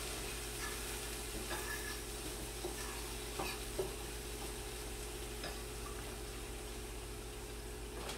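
Diced chicken sizzling in a frying pan with a little water just added, while a utensil stirs it, clicking and scraping against the pan now and then.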